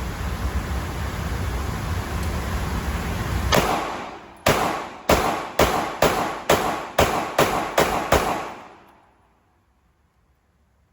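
Taurus G3C 9mm pistol fired in a rapid string: one shot about three and a half seconds in, then about ten more shots at roughly two to three a second, emptying the magazine. Steady noise comes before the shots.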